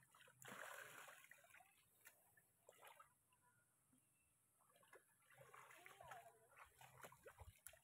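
Near silence, with a few faint splashes and sloshes of people wading through shallow muddy water.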